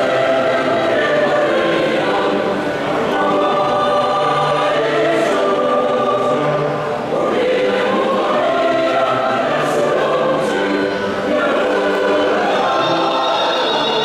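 Mixed-voice choir singing a Basque folk song in parts, holding sustained chords phrase after phrase with brief dips between phrases.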